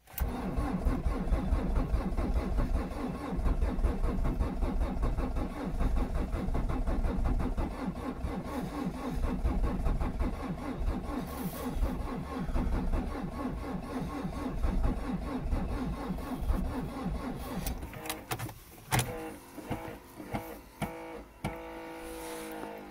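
Starter motor cranking a 1.9 dCi diesel engine in deep cold (−23 °C), starting abruptly and grinding on steadily for about eighteen seconds. It turns too slowly to start because the cold engine oil is too thick. The sound then breaks into uneven bursts for the last few seconds.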